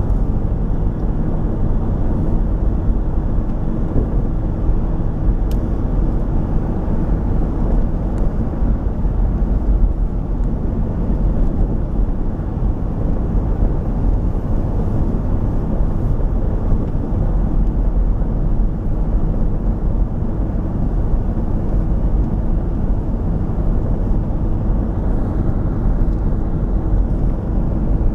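Steady low rumble of a moving vehicle, heard from inside while travelling at speed, with a faint hum running through it.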